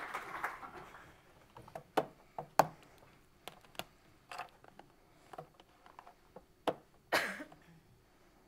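Audience applause trailing off, then a quiet hall with a few sharp clicks and knocks and one short rustling burst near the end, as the speaker handles things at the lectern.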